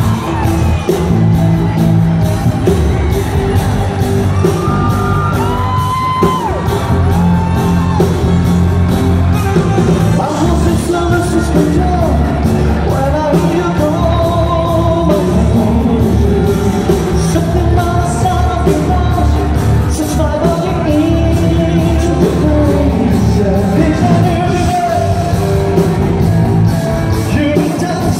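Live pop band playing with singers on stage, heard from inside the crowd of a large hall, with shouts and yells from the audience.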